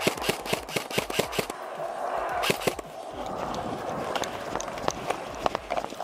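Airsoft guns firing rapid bursts of sharp clicks: a dense burst in the first second and a half, another about two and a half seconds in, then scattered shots, over a steady hiss.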